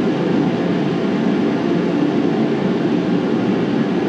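A space heater running with a steady, even noise.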